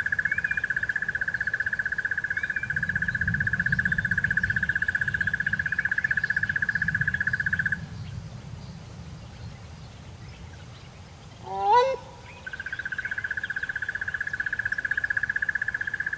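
A frog's steady, rapidly pulsing trill at one pitch stops a little before halfway through and starts again later. In the gap a grey crowned crane gives one short, loud, rising honk.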